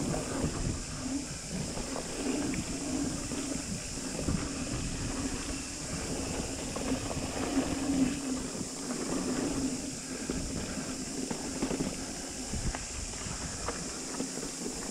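Mountain bike riding fast down a dirt trail: tyre noise on the dirt with many small knocks and rattles from the bike over bumps, a low hum that comes and goes, and hiss from air rushing past the camera microphone.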